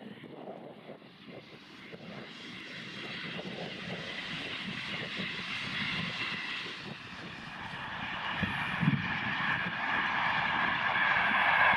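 Train approaching, its rumble and steady whine growing steadily louder.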